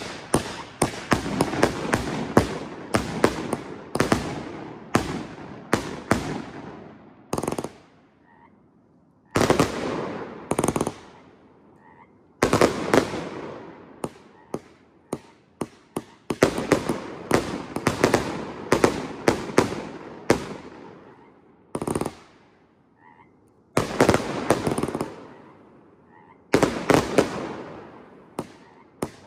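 Master Gold fireworks cake firing volleys of sharp bangs in quick succession. Each volley trails off over a second or two, and there are short gaps between volleys.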